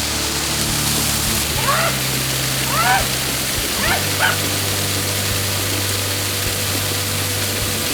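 Steady rush of a waterfall under background music with sustained low notes, and four short, pitched, voice-like calls that rise and fall, about two to four and a half seconds in.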